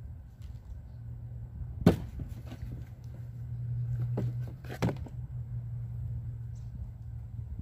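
A black plastic planter box knocking as it is lifted and tipped to empty out its soil: one sharp knock about two seconds in, a lighter one just after four seconds and another sharp one near five seconds. A steady low hum underneath.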